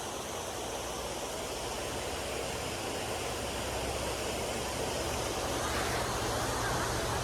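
Steady rushing of a small roadside waterfall, with a low rumble coming in from about two seconds in.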